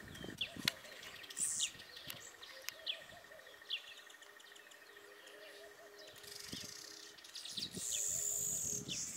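Masked weaver birds chirping in short, falling notes repeated throughout, with a longer high buzzing note near the end and a faint steady high tone underneath.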